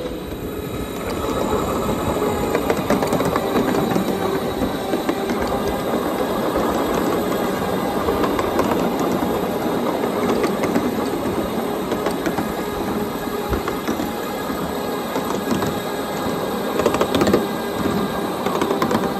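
Ride-on miniature railway train rolling along the track: a steady rumble of steel wheels on rail with rapid clicking over the rail joints and a steady gear whine from the electric drive. Near the end there is a short burst of louder clatter.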